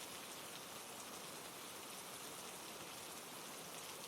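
Steady rain falling: an even hiss of many drops with faint individual patters.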